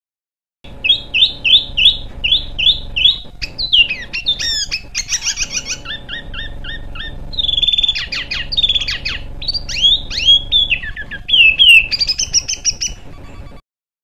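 A small songbird singing a fast, varied song. It opens with a run of about six evenly repeated chirps, then goes into rapid mixed phrases of chirps, trills and sweeping whistles. The song starts a moment in and cuts off abruptly just before the end, over a steady low hum in the recording.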